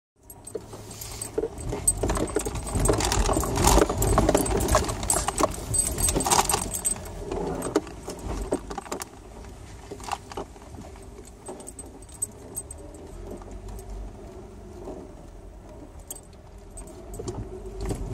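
Inside the cab of a vehicle driving over a rough dirt road: rattling and jangling of loose items in the cab as it bounces, over a low steady rumble of engine and tyres. The clatter is heaviest for the first several seconds and then settles to scattered rattles.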